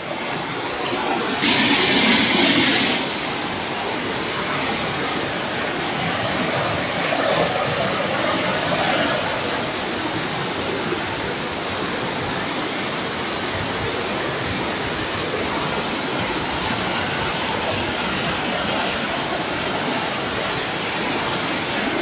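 Water of a small waterfall rushing and splashing steadily over rocks. A louder hiss lasts about a second and a half shortly after the start.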